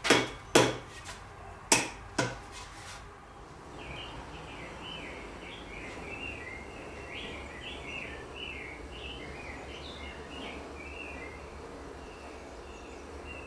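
Four sharp knocks in the first two seconds or so from work fitting the axe head onto its handle at the bench. From about four seconds in, a bird sings a fast, varied run of chirps for most of the rest.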